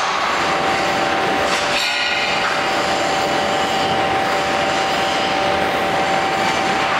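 CNC angle-steel punching line running: steady machine noise with a high steady whine. About two seconds in comes a sharp metallic clang whose ring dies away within about half a second.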